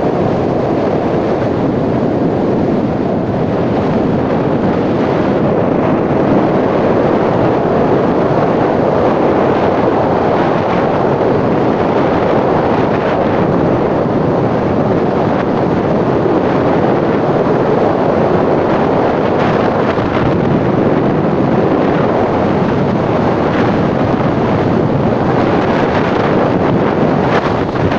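Strong wind blowing across the microphone, mixed with the rush of heavy seas breaking along a tanker's hull. The noise is loud and steady, with no distinct single events.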